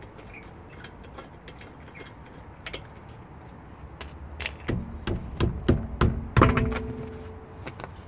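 Front alloy wheel of a VW Golf being taken off: light ticking as the wheel bolts are turned out by hand, then a run of loud metallic clunks and clinks, some ringing briefly, as the bolts come free and the wheel is lifted off the hub. The loudest knocks come a little past the middle.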